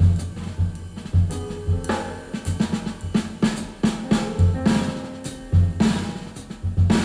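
Recorded music led by a drum kit: frequent snare and rimshot hits over deep bass drum strokes in an uneven rhythm. It is played back through Avalon Acoustics hi-fi loudspeakers in a listening room.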